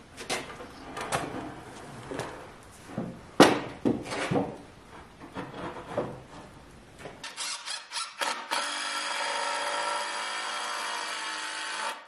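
Ash 2x4 lumber knocking and clunking as the top of a wooden frame is handled and set onto its uprights, the loudest knock about three and a half seconds in. From about eight seconds a cordless drill runs steadily, driving a screw into the frame.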